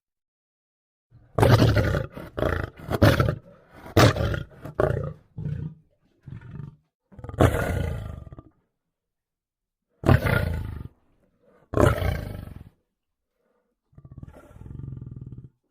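Lion roars and snarls, used as a big-cat character's vocal effects. First comes a quick run of short snarling roars, then four separate longer roars with silent gaps between them. The last roar is quieter.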